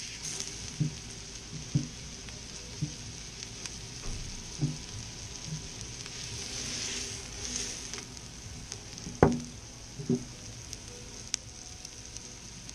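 Seasoned mahi mahi fillet sizzling in olive oil on a hot electric griddle at 350 degrees, a steady frying hiss. Soft knocks come about once a second, and two sharper knocks come about three quarters of the way through.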